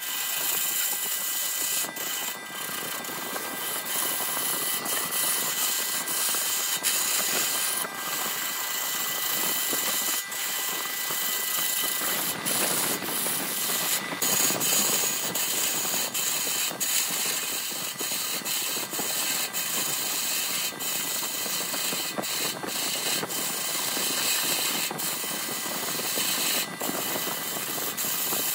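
Wood lathe spinning a glued-up blank of bamboo chopsticks and epoxy resin while a hand-held turning tool cuts into it: a steady hissing scrape with scattered brief clicks. A faint high whine runs under it and stops about twelve seconds in.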